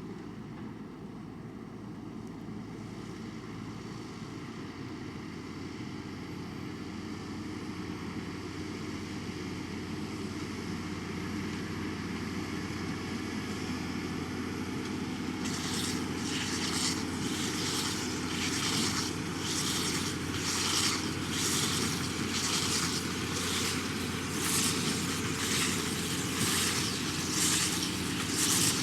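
Fendt 724 tractor's six-cylinder diesel engine running steadily and growing louder as it comes closer. About halfway through, a regular swishing beat starts from the machine it is driving, at a little over one stroke a second.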